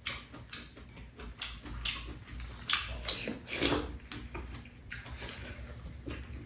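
Two people eating with spoons: irregular clicks of metal spoons against bowls, mixed with short slurps of soup and chewing.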